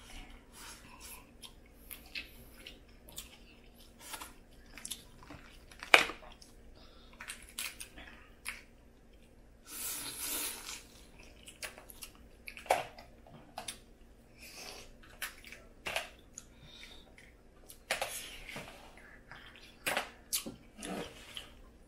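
Wet cracking, clicking and smacking of Cajun-style crawfish being peeled and eaten by hand, with light clinks of dishes. A sharp crack comes about six seconds in, and a longer hiss-like sound comes about ten seconds in.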